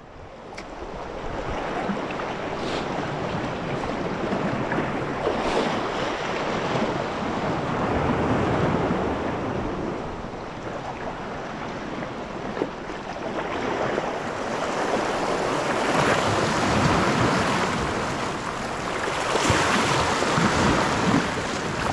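Sea waves washing and breaking on a rocky shore, the surge swelling and easing every few seconds, with wind buffeting the microphone.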